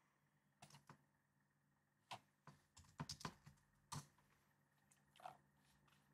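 Faint computer keyboard keystrokes and mouse clicks: a dozen or so short, scattered taps, bunched together about three seconds in.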